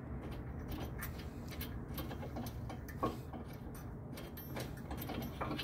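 Scattered light metallic clicks and clinks of hand tools and brake hardware being worked at a car's front brake, with one sharper clank about three seconds in and a quick run of clicks near the end.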